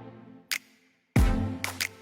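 Electronic background music with a beat: deep bass hits with held notes and sharp snare-like clicks, pausing briefly about half a second in before the beat comes back.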